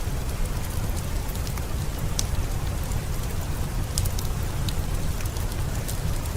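Heavy rain falling steadily with a deep low rumble, mixed with a fireplace's scattered sharp crackles and pops.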